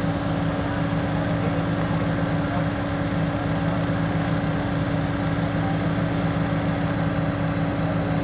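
Water-well drilling rig running steadily, its engine and hydraulics giving a constant hum with no change in pitch.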